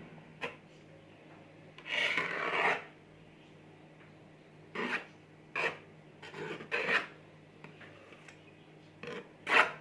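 A spatula spreading and smoothing cream across the top of a sponge cake: a handful of short scraping strokes, the longest about two seconds in.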